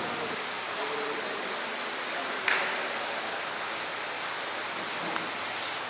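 Steady, even background hiss with no voices, and a single sharp click about two and a half seconds in.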